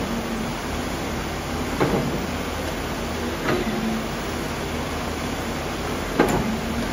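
Excavator engine and hydraulics running steadily as a padfoot compaction wheel works backfill soil in a trench, with three sharp knocks from the attachment and soil, the loudest about six seconds in.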